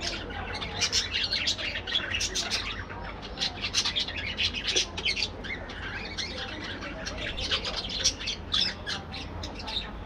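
A colony of budgerigars calling constantly, with many short, rapid chirps overlapping one another.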